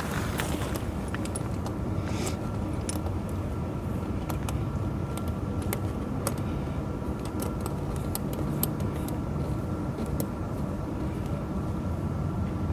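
Tractor engine running steadily at idle, with scattered light metallic clinks of tire chain links being handled.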